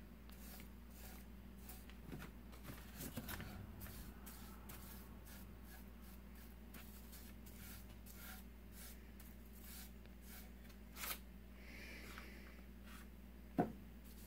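Paintbrush strokes wetting bare pine with black tea: faint, repeated swishes of bristles across the wood, with one sharp knock about a second before the end.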